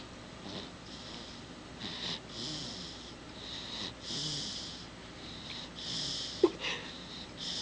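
A month-old baby snoring in his sleep, a breathy, noisy breath about every second or so. A short, sharp squeak comes about six seconds in.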